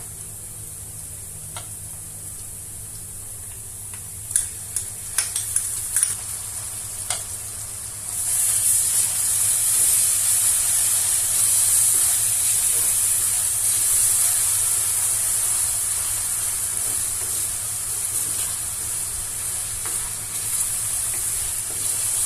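Hot oil sizzling in a pan of softened chopped onions, with a few sharp spoon clicks against the pan. About eight seconds in the sizzling jumps much louder as the wet ginger-garlic-onion paste goes into the hot oil, and it keeps sizzling steadily while it is stirred.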